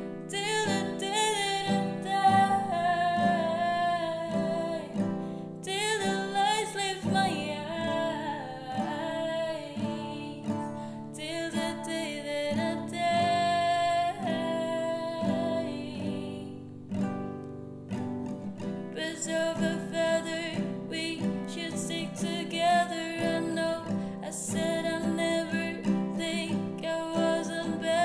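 Acoustic guitar playing the song's chords with a voice singing or vocalising over it, the melody gliding between notes. The music thins out briefly past the middle, then builds again.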